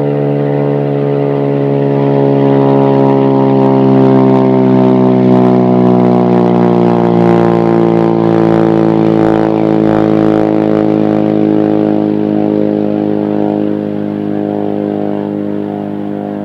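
Racing motorcycle engine running hard on a land-speed run across the salt flats, a steady high-revving note whose pitch slowly falls. It is loudest a few seconds in and eases off near the end.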